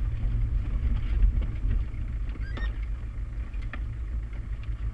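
Land Rover Defender 90 diesel engine running as the vehicle drives slowly over a rutted dirt track, a steady low rumble with scattered knocks from the bumps. There is a brief high squeak about halfway through.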